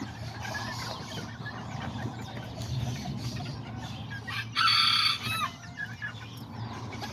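Small bantam chickens clucking and chirping, with one short rooster crow about four and a half seconds in that is the loudest sound.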